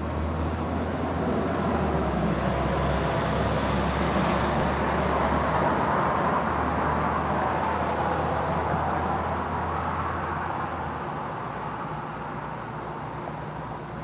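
A car passing along the street: road and engine noise swell over the first several seconds, then fade away toward the end. A steady low hum under it stops near the end.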